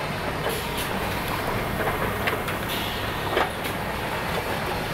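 Automated LG stator bolt-insertion machine running: a steady factory hum with scattered clicks and knocks from its pneumatic grippers and a short hiss; the loudest knock comes a little over three seconds in.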